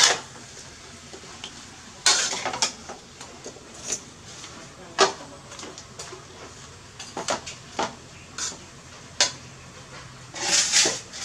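Metal spatula knocking and scraping against a steel wok while greens are stir-fried: irregular clanks and clinks every second or two, with a louder flurry of clatter near the end.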